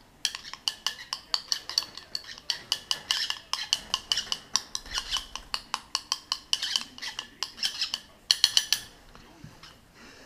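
Metal spoon stirring hand-feeding formula in a small glass, a quick run of clinks against the glass that stops about nine seconds in.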